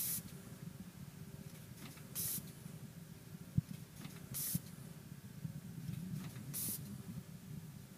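GammTech VVF vertical form-fill-seal machine cycling on PVA detergent pouches. A short hiss of exhausting compressed air from its pneumatic cylinders comes about every two seconds, four times, over a steady low machine hum. A single sharp click comes near the middle.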